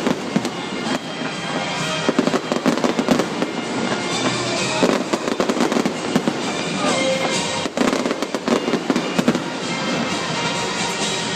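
Aerial fireworks display going off in a rapid, continuous barrage of bangs and crackles.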